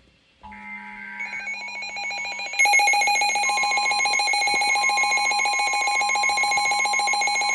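Emergency Alert System tones: quieter warbling data-burst tones from about half a second in, then a loud, steady two-tone alarm (the EAS attention signal) from about two and a half seconds in, announcing a flash flood warning. A low buzz pulses on and off underneath.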